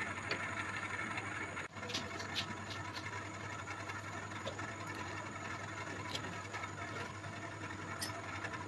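Pliers bending a thin steel rod held in a bench vise, making a few light metallic clicks and taps over a steady low hum.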